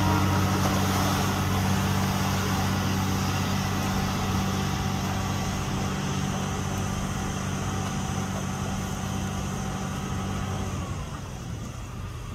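Diesel engine of a tracked excavator working on a dredging pontoon, running with a steady hum. Its higher notes drop away about eleven seconds in as the engine eases off.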